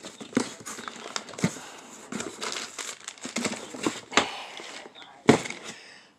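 Rummaging through cardboard boxes and plastic storage bins: irregular rustling, crinkling and light knocks, with one sharper knock about five seconds in.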